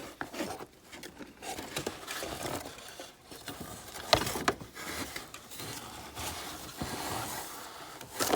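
Plastic toy playset pieces handled in their packaging: scraping and rubbing with scattered light clicks, the sharpest about four seconds in and another near the end.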